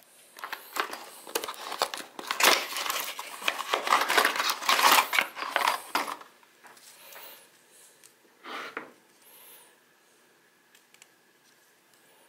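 Rustling and crinkling of a toggle bolt package being opened and handled, mixed with many sharp light clicks, for about six seconds. After that, only fainter, scattered handling sounds with a brief rustle near the end.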